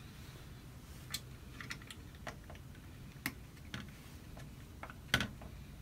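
Scattered light plastic clicks and taps from small parts being handled and seated in an open Nerf Longshot blaster shell, the sharpest about five seconds in.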